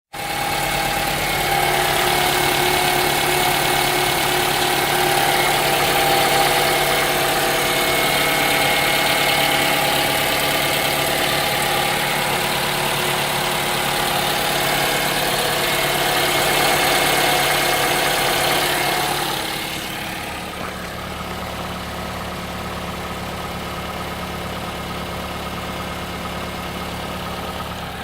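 Toyota Camry V50's 2AR-FE 2.5-litre four-cylinder engine idling from cold with a knock, which the owner takes for piston knock. About two-thirds of the way through the sound drops in level and turns duller.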